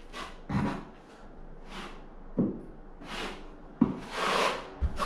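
Notched trowel scraping tile adhesive across a drywall wall in repeated strokes, about one every half second, a few of them starting with a sharp knock.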